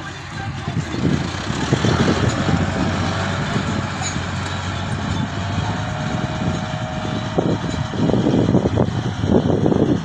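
Diesel engine of a Mahindra Novo 605 tractor running as it drives over loose soil, with a backhoe loader's engine close by; an uneven rumble that grows louder near the end.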